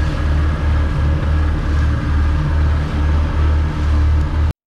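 A boat's motor runs steadily under way, with a deep rumble that pulses a little under twice a second. The sound cuts off suddenly near the end.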